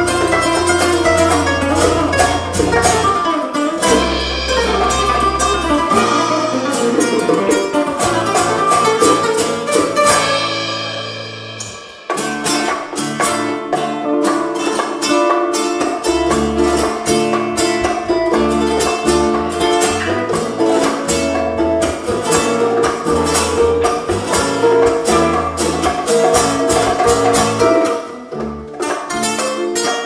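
Live band music: nylon-string acoustic guitars playing quick plucked lines over bass guitar and drums with hand percussion. The music thins out about ten seconds in, then the full band comes back in abruptly about two seconds later.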